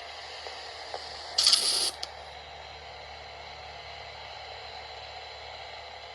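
Weather radio receiver tuned to a NOAA Weather Radio station that has gone silent: a steady faint hiss and hum of the open carrier with no voice on it. About a second and a half in, one sudden half-second burst of high hissing noise.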